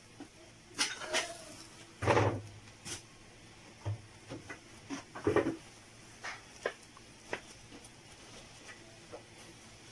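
Coarse salt crunching under a hand pressing and patting it down over a fish in a baking dish: scattered short crunches and clicks, with louder bumps about two and five seconds in.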